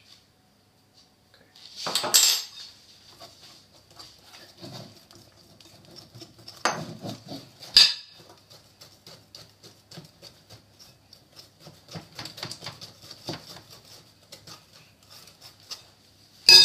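A utensil stirring thick brownie batter in a glass mixing bowl, scraping and clinking against the glass, with a few louder knocks about two seconds in, around seven to eight seconds, and near the end.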